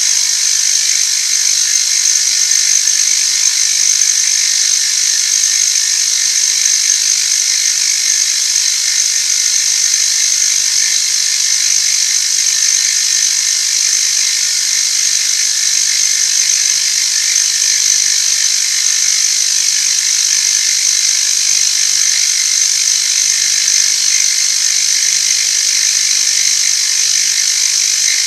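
Machine tool taking a steady cut in a metal workpiece, removing excess material. A continuous high-pitched cutting hiss sits over a steady motor hum.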